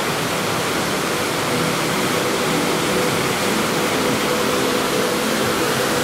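Steady rushing of water from the hotel atrium's ornamental pool water feature, an even hiss with no breaks.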